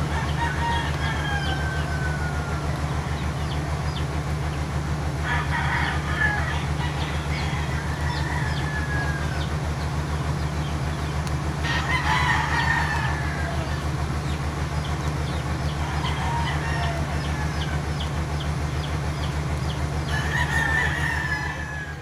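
Sulphur-crested cockatoo giving several drawn-out crowing calls like a rooster's, some falling in pitch, with the loudest near the middle and near the end, over a steady low hum.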